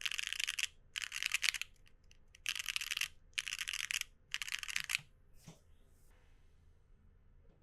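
Mechanical keyboard with WEKT XCJZ Green Mustard Plus linear switches (PP top housing, POM stem) typed on in five fast bursts of clacky keystrokes over the first five seconds, then quiet.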